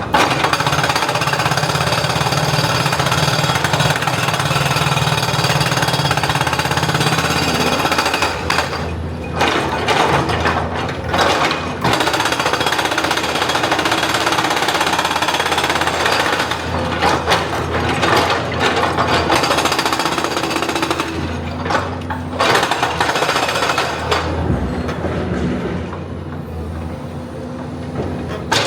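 Excavator-mounted hydraulic breaker hammering rock in rapid strokes over the steady hum of the diesel engine, stopping briefly a few times.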